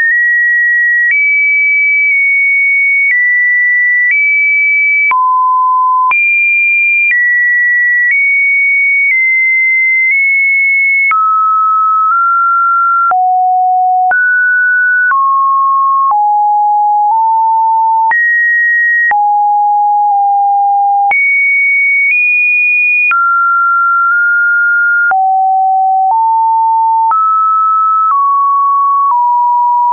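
Computer-generated pure sine-wave test tones, one steady tone each second, each at a different pitch jumping up and down between mid and high, with a small click at every change.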